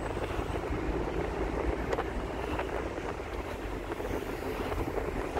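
Steady road and engine noise of a moving car, a low rumble with an even hiss above it.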